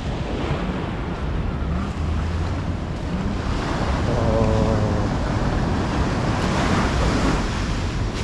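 Sea waves washing on the shore, with wind buffeting the microphone. A faint voice is heard briefly about halfway through.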